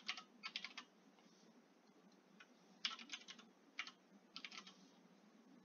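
Computer keyboard typing, faint, in about four short runs of keystrokes with pauses between.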